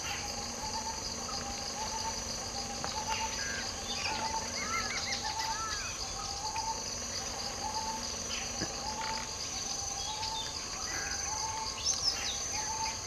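Steady high drone of insects, with a short bird call repeating about once a second and a few chirps from another bird near the middle.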